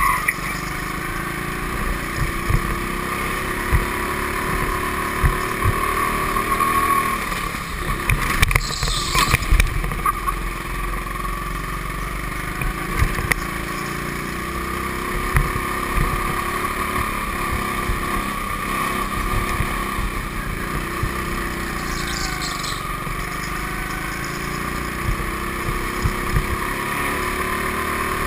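Go-kart engine running steadily under way, picked up by a camera mounted on the kart, with scattered knocks and thumps and a brief noisy burst about eight seconds in.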